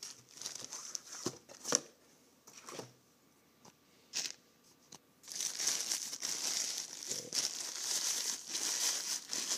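White protective wrapping around a camcorder being handled and pulled open, crinkling. There are a few separate crinkles in the first half, then continuous rustling from about halfway through.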